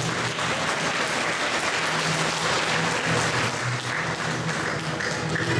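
Audience applauding steadily, with music playing underneath that becomes clearer near the end.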